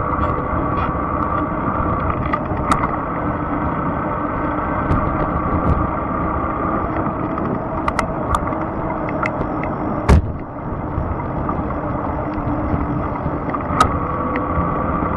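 Fat-tire electric bike riding along a trail: a steady whine that eases off through the middle, over a continuous rumble from the wheels, with scattered small knocks and rattles from bumps and one louder knock about ten seconds in.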